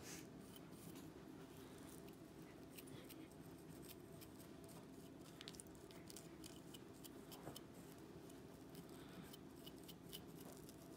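Faint scratching of a fine-tooth rat-tail comb scraped along a scalp thick with dandruff flakes and scales, heard as quick, irregular little ticks over a low steady hum.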